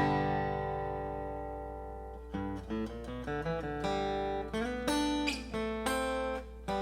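John Walker Wise River acoustic guitar, mahogany back and sides with an Adirondack spruce top, being played: a strummed chord rings out and fades for about two seconds, then single notes and short chords are picked one after another.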